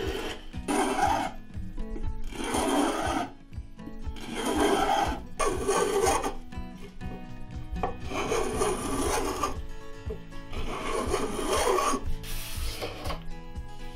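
Hand shaving strokes on oak, mostly a spokeshave drawn along a curved oak piece, each stroke a rasping cut about a second long, about seven in all, coming every one to two seconds.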